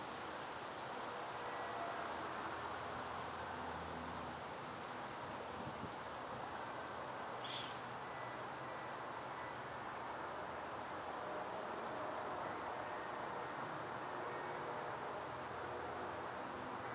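Insects chirping in an even, high pulsing over a steady outdoor background hiss, with one brief high chirp about seven seconds in.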